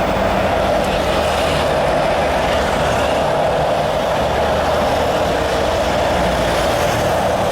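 Steady, loud jet engine noise from an airliner at the airport, an even roar with a strong hum in the middle range.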